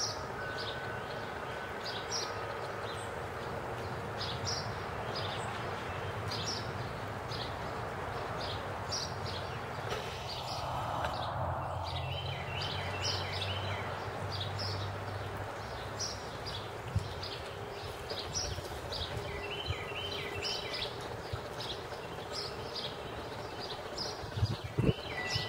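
Small birds chirping over a steady outdoor background hiss: short high chirps every half second or so, with two quick runs of rapid repeated notes about halfway through and again later on.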